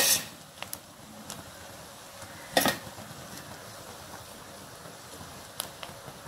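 Cooked rice being spooned into a pot and spread with a spoon: two short scraping knocks of the spoon against the rice and pot, one at the start and one about two and a half seconds in, and a few faint ticks, over a steady faint hiss.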